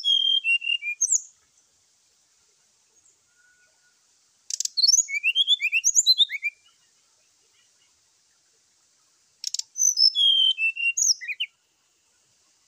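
Brown-chested jungle flycatcher singing its aggressive 'fighting' song: three short phrases of quick, high chirping notes sliding up and down, each about two seconds long and about five seconds apart. The second and third phrases each open with a sharp click.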